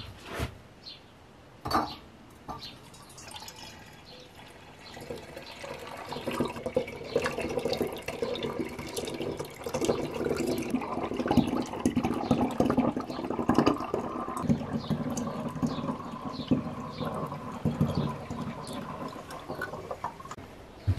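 Rhubarb-and-honey mead must being poured from a steel bowl through a steel funnel into a glass demijohn. The pouring builds up from about five seconds in and is loudest around the middle, as the liquid splashes and foams into the jar. There are a couple of clinks near the start.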